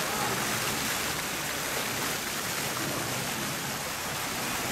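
Several vertical fountain jets falling back into the pool, a steady splashing rush of water.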